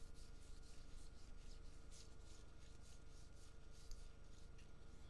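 Baseball cards being flipped through by hand, each card slid off the stack against the next: a run of faint, quick swishes of card rubbing on card.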